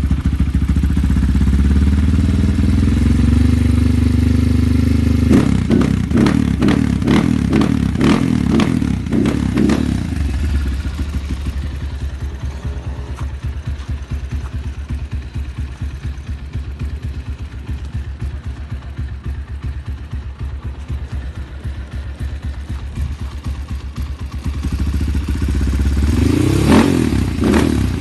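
Honda Tiger single-cylinder four-stroke motorcycle engine running on the stand. The revs rise over the first few seconds, then a string of quick throttle blips follows for about four seconds, it settles to a steady pulsing idle, and near the end it is revved again.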